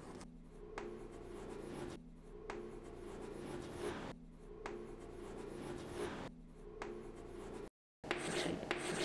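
Chalk scratching and tapping on a blackboard as numbers are written, in several stretches of writing a second and a half to two seconds long with short pauses between. The sound cuts out for a moment near the end.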